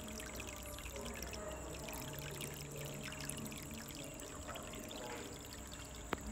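Water pouring and trickling steadily from the outflow of a small USB-powered aquarium pump into a goldfish tub, running strongly.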